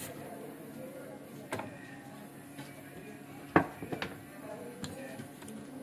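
A few sharp taps and clicks of small tools against a phone circuit board, the loudest about three and a half seconds in, as flux paste is cleaned off a freshly soldered ringer IC.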